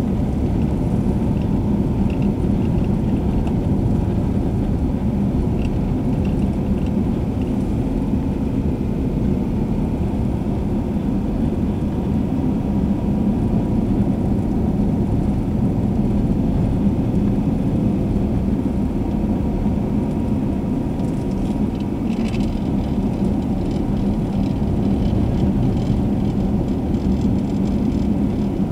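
Steady engine and tyre noise of a car driving along a paved road, heard from inside the cabin as a low, even rumble.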